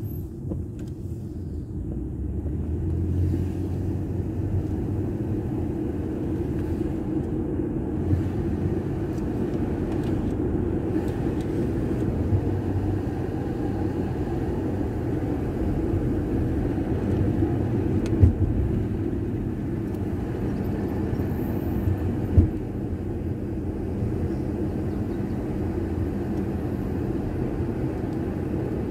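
Steady engine and tyre rumble of a car being driven, heard from inside the cabin, with two brief thumps in the second half.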